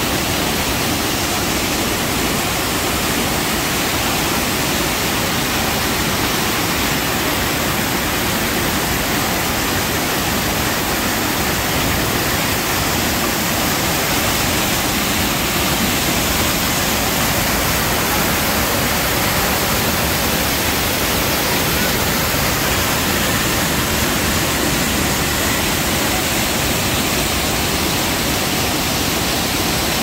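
Waterfall pouring over sandstone ledges into a pool below, heard from right at its edge: a loud, steady rush of falling water.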